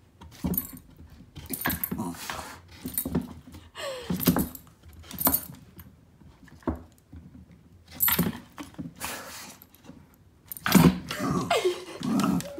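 A dog nosing and snapping at a wooden board with holes: irregular clattering knocks and jingling from the board and its collar, with two short voice-like sounds, about four seconds in and near the end.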